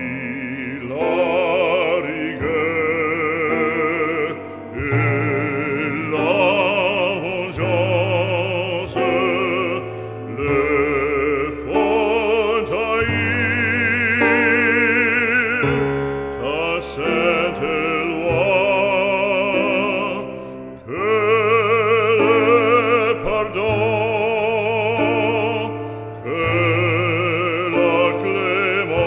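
Operatic singing with a wide vibrato, over sustained low accompanying notes.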